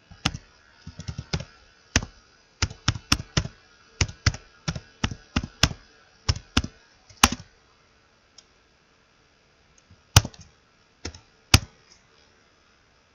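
Computer keyboard typing: a quick run of keystrokes for about seven seconds, then a pause and a few single keystrokes near the end.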